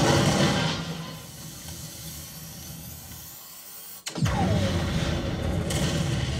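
Movie train-crash sound effects played back through home-theater speakers: a heavy low rumble that fades over the first few seconds, drops out almost completely about four seconds in, then comes back hard with a short falling screech.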